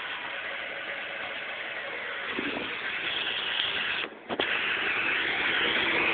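A 1998 speedster making steady mechanical noise, in which the owner hears a rattle. It briefly cuts out about four seconds in, then grows slowly louder.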